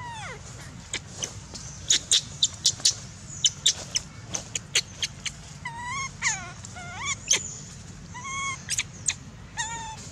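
Baby macaque crying: repeated high whimpering calls that rise and fall in pitch, coming in the second half. Before them, a quick run of short, sharp high sounds.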